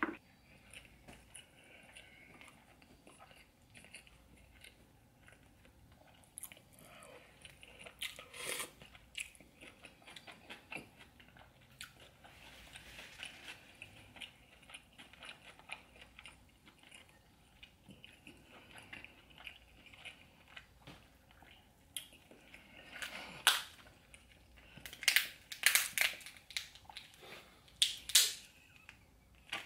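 A person chewing and smacking mouthfuls of seafood boil close to the microphone: wet mouth clicks and bites come and go, louder and more frequent near the end.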